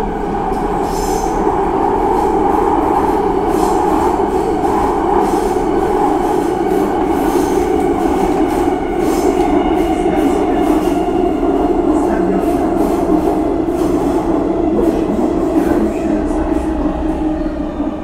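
Subway train running over the rails in a tunnel: a steady loud rumble with held whining tones and a scatter of faint clicks from the wheels, easing off slightly near the end.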